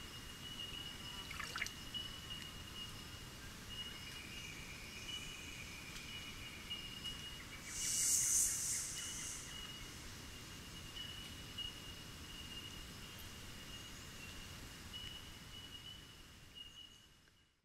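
Faint outdoor ambience at a shallow pebbly stream: water lapping and trickling, with a steady thin high tone and a brief louder hiss about eight seconds in. It fades out near the end.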